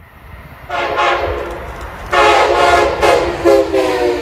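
Train air horn sounding a chord: one blast of about a second and a quarter, then, after a short gap, a louder run of several short and longer blasts.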